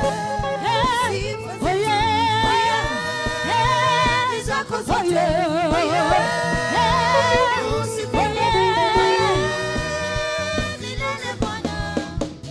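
Live gospel praise music: singers holding long, wavering notes over a band with a steady bass line.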